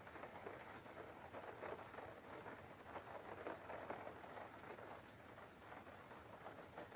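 Faint, steady rain falling, a soft patter of many small drops.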